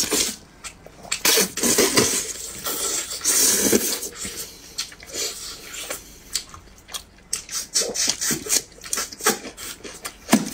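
Close-up eating sounds of a person biting meat off a large braised beef rib and chewing it: irregular smacking and clicking mouth sounds, with short bursts of noise.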